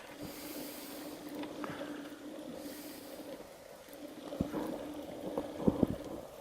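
Boat's outboard motor running steadily at low speed, a constant hum. A few knocks in the boat come between about four and six seconds in.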